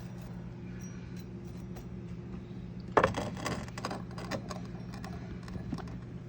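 Handling noise: a sharp clatter about three seconds in, then a few lighter clicks and taps, over a steady low hum.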